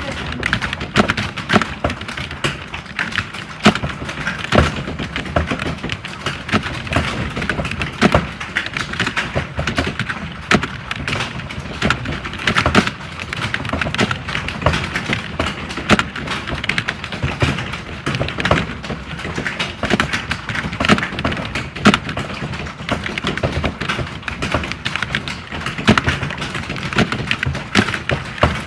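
Computer keyboards typed on fast, as in a typing-test hall: a dense, unbroken clatter of key clicks with no pauses.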